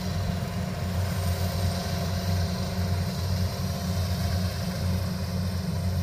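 Kubota DC68G combine harvester's diesel engine running steadily with a loud, even low drone.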